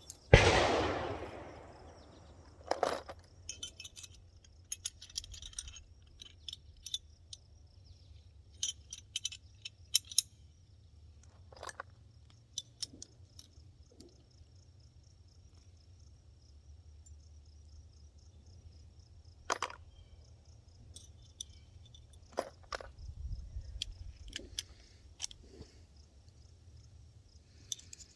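A single shot from a prototype pistol just after the start, loud and ringing out for about a second and a half. Then come scattered metallic clicks and clinks from handling the pistol and its cartridges, over a faint steady high-pitched buzz.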